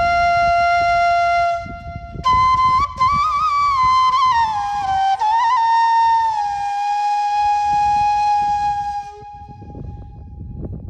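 Solo flute melody of held notes with quick ornamental turns, breaking briefly about two seconds in and ending on a long held note near the end. Faint, uneven low noise follows.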